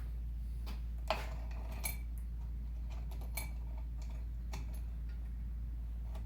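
Saw chain being handled and set into a bench chain grinder: a few separate light metallic clicks and clinks, the sharpest about a second in, over a steady low hum.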